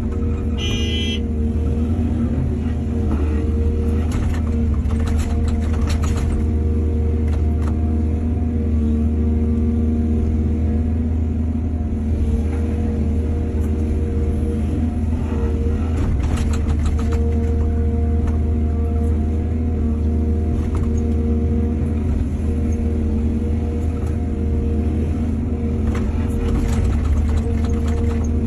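Diesel engine of an excavator running steadily under work, a deep constant drone. A brief high-pitched tone comes about a second in, and scattered metallic knocks come in three clusters.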